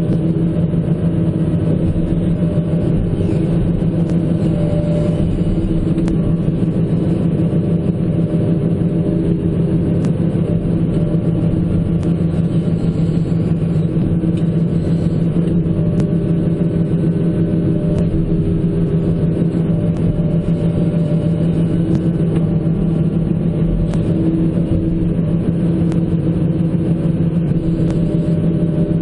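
John Deere 160C LC excavator's diesel engine running steadily at raised revs as the joysticks are worked, its auto idle overridden by the control movement.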